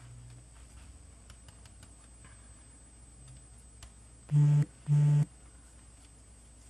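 Faint scrapes and clicks of a metal box grater being handled. About four seconds in come two short, loud buzzes about half a second apart, each at one steady low pitch.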